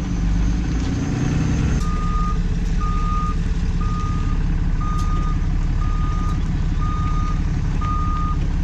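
Truck's reversing alarm beeping once a second, seven even beeps starting about two seconds in, over the steady rumble of its running engine.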